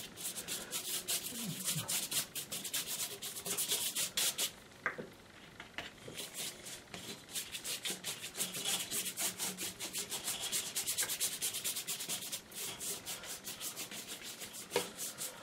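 Quick back-and-forth strokes rubbing water across a sheet of Fabriano watercolour paper to wet it all over. The strokes come several a second, with a short pause about five seconds in.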